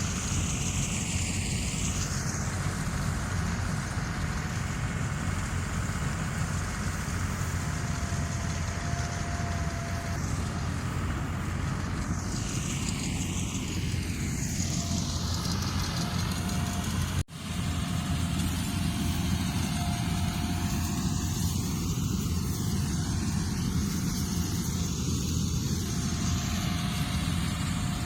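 Harvesting machine running steadily during the rice harvest: a low engine drone with a thin steady whine over it, broken once by a momentary cut-out about two-thirds of the way through.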